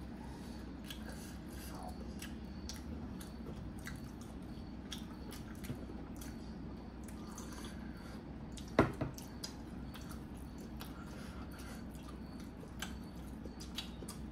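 Quiet eating sounds: soft wet mouth noises and small scattered clicks over a low steady hum, with one sharp knock about nine seconds in, followed by a couple of lighter ones.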